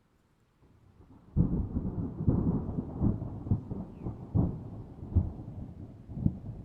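Thunder: a faint low rumble builds, then about a second and a half in a sudden loud crack breaks into a long rolling rumble with repeated crackling peaks.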